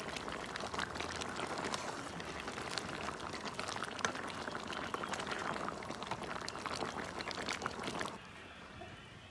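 A metal pot of vegetable soup bubbling as a ladle stirs through it, with many small clicks of the ladle in the pot. The bubbling and stirring stop abruptly about eight seconds in, leaving a quieter background.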